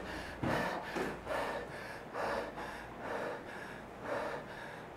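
A man breathing hard and fast through his mouth after an all-out treadmill sprint in low-oxygen air, about one heavy breath each second: he is out of breath and short of oxygen.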